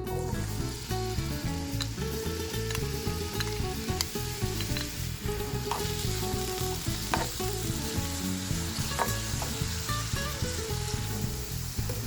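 Food sizzling steadily in a hot frying pan, with a few sharp clicks of a utensil against the pan.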